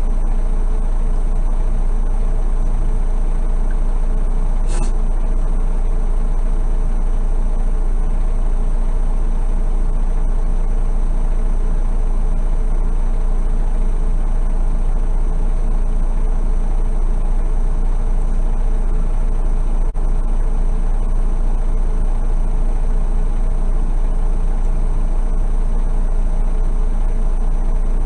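Semi truck's diesel engine idling steadily, heard inside the cab, with a single short click about five seconds in.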